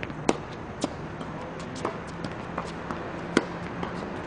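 Tennis rally on a hard court: sharp pops of a racket hitting the ball and the ball bouncing, the loudest about a third of a second in and again just past three seconds, amid lighter taps and shoe scuffs. A low steady hum runs underneath.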